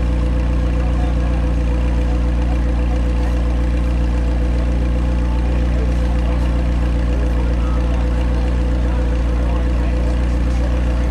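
McLaren 720S's twin-turbo 4.0-litre V8 (M840T) idling steadily, heard close to its exhaust outlets.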